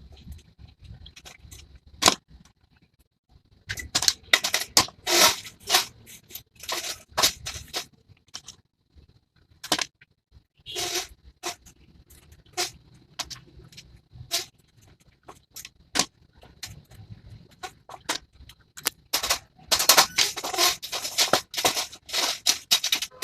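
Irregular clicks, knocks and rattles of hand work on a grocery stand being repaired, coming in clusters with short pauses and a few sharper single knocks.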